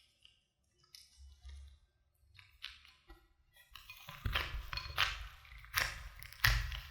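Small objects being handled close to the microphone: scattered clicks, taps and rustles, becoming louder and busier about four seconds in.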